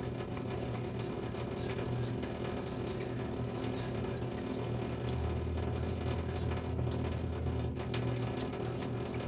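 Russian Blue cat lapping from a thin stream of tap water, making many quick, irregular wet tongue clicks and smacks.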